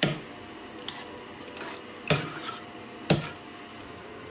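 A metal cooking pot and a metal strainer knocking and clinking against each other as cooked rice is handled for rinsing: three sharp knocks, at the start, about two seconds in and about three seconds in, with a couple of lighter taps between.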